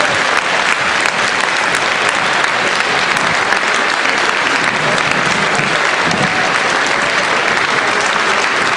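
A crowd applauding steadily: many hands clapping at once, with voices underneath.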